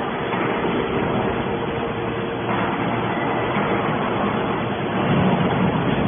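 Y81/T-4000 hydraulic metal baler running: a steady mechanical drone with a few held tones, a little louder near the end.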